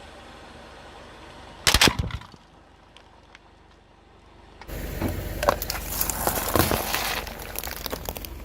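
Car engine running at low speed, then a sharp loud crack about two seconds in as the tyre crushes something. From about halfway there is a run of dense crunching and crackling as the tyre rolls over and breaks up more objects.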